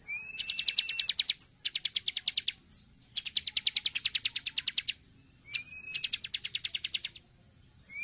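Bar-winged prinia (ciblek) singing in bouts of rapid, high, sharp notes, about ten a second. Each bout lasts a second or two, and some open with a short whistle. There are brief pauses between the bouts.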